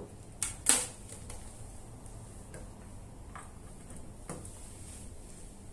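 A few short, sharp plastic clicks and knocks as an electrosurgical pencil's plug is handled and pushed into the socket on the front panel of an electrosurgical unit. The loudest click comes just under a second in, with fainter ones scattered after.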